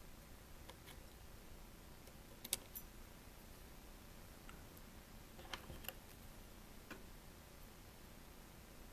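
Near quiet, broken by a few faint, sharp clicks and ticks of small tools and tiny parts being handled on the phone's internals.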